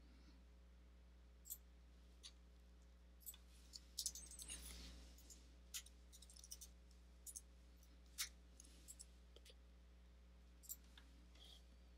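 Computer keyboard keystrokes and mouse clicks: scattered single clicks, with a quick run of keystrokes about four seconds in, over a low steady hum.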